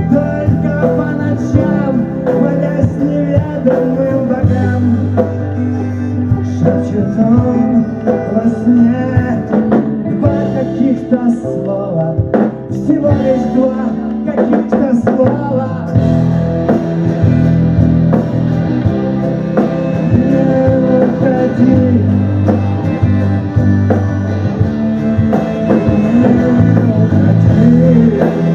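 Live band playing a song: guitar over a steady bass line, with singing.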